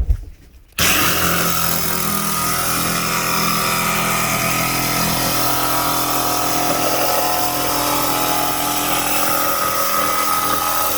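Ryobi jigsaw cutting a board: it starts about a second in and runs steadily.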